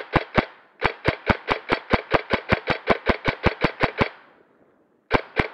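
Airsoft gun firing a fast, even stream of shots, about six a second. The stream breaks briefly just after the start, stops about four seconds in, and two more single shots follow near the end.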